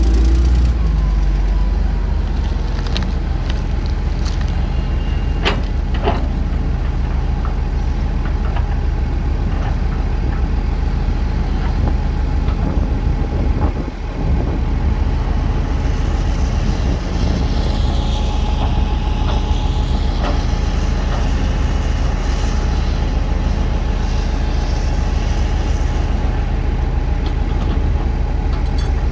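Heavy diesel engine of earth-moving machinery running steadily, with a few sharp knocks and clanks over it.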